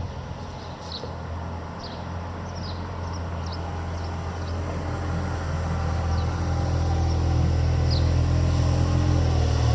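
A motor vehicle's engine rumbling and growing steadily louder as it approaches.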